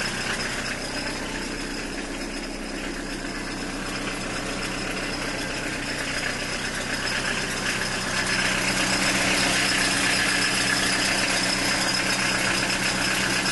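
Peugeot 306 XLdt diesel engine idling cold after standing unused for 19 days, heard from inside the cabin. The sound grows louder about eight seconds in.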